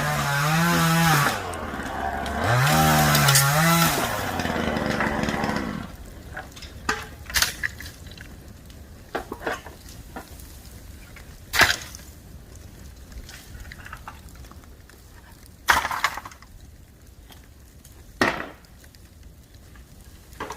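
An engine revs up and down twice in the first few seconds. After that a bamboo campfire crackles quietly, with sharp pops every few seconds.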